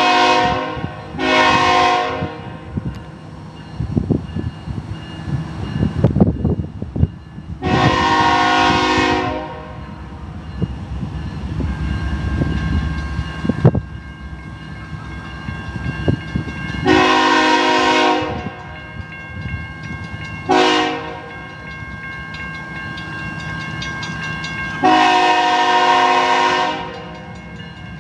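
CSX freight locomotive's multi-chime air horn blowing two short blasts, then the grade-crossing signal of long, long, short, long, as the train approaches. A low rumble of the train runs underneath.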